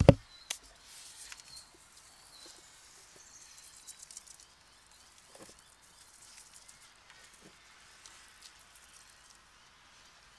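A sharp thump right at the start and a smaller knock about half a second later, then quiet outdoor yard ambience with faint, scattered sounds from the waiting dogs.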